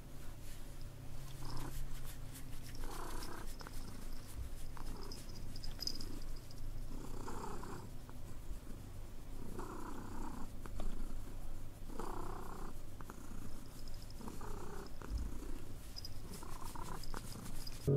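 Domestic cat purring steadily as it is stroked, the purr swelling with each breath about every two seconds.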